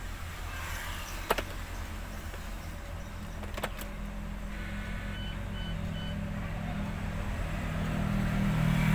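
MAN truck diesel engine idling, heard from inside the cab: a steady low rhythmic hum that slowly grows louder. Two sharp clicks come about one second and three and a half seconds in.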